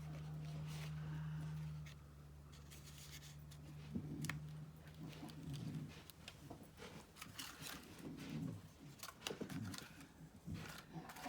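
A dog rubbing and scratching its face on a rug, making soft scuffling and snuffling noises, with scattered light clicks and rustles of paper. A low steady hum stops about two seconds in.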